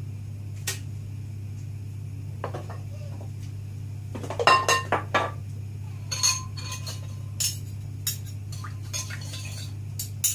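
A metal spoon clinking and scraping against a bowl as a salad dressing is stirred and spooned, with scattered light clinks and a quick run of ringing clinks about four to five seconds in, over a steady low hum.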